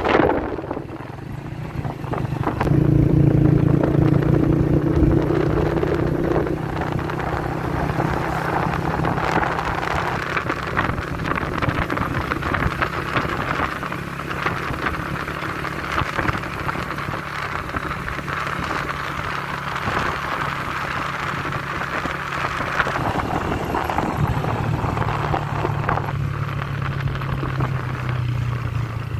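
Small motorcycle engine running steadily under way, with wind rushing over the microphone. The engine note is strongest a few seconds in and again near the end.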